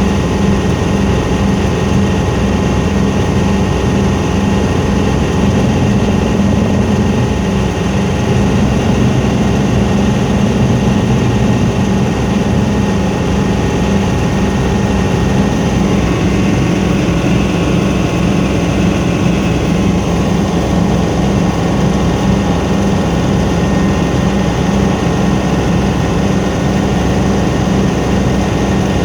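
Helicopter's engine and rotor running steadily and loudly, with a constant hum.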